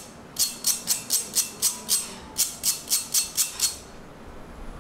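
A small bamboo brush scraping across a fine metal grater in quick rasping strokes, about four a second, sweeping the grated food off the teeth. There is a short break about two seconds in, and the strokes stop shortly before the end.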